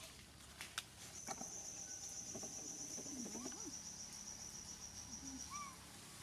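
An insect in the forest giving a steady, high-pitched trill that starts about a second in and stops shortly before the end.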